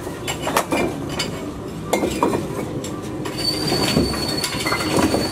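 Broken bricks being lifted and tossed onto a pile of rubble, clattering and clinking in a string of irregular knocks. A thin, steady high tone sounds for about two seconds in the second half.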